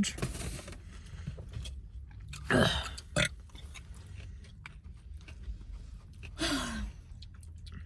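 Close-up chewing of food with small wet mouth clicks, broken by two short burps with falling pitch, one about two and a half seconds in and another about six and a half seconds in.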